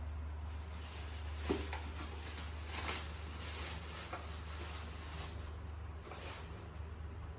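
Steady low hum with a few soft rustles and knocks, the sharpest about one and a half seconds in and another about three seconds in.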